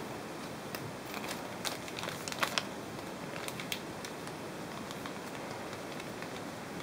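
Clear plastic parts bag crinkling in the hands, with scattered small clicks and taps that are busiest between about one and four seconds in, over a steady hiss.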